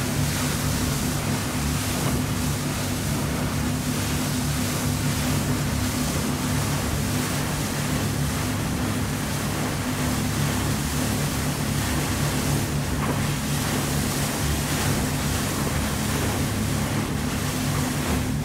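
Fast boat running at speed: a steady low engine drone under the loud rush of wake and spray along the hull and wind.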